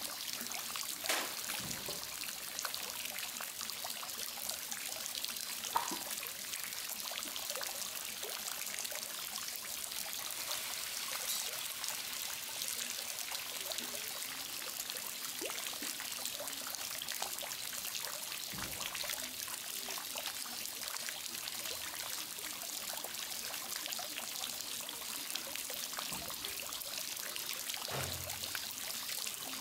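Steady trickle of running water, with a couple of brief small clicks in the first few seconds.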